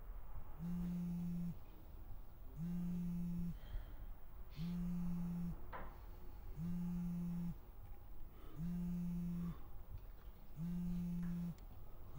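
Smartphone vibrating with an incoming call: a low buzz about a second long, repeating every two seconds.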